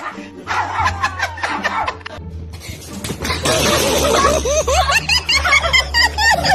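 Background music with laughter over it. The laughter grows louder and busier about halfway through.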